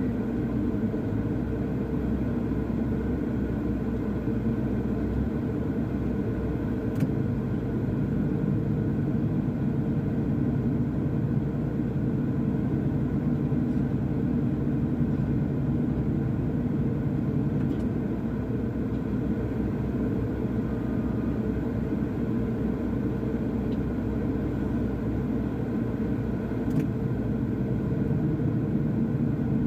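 Diesel engine of a Doosan DX210W wheeled excavator running steadily: a low, even rumble with no change in speed.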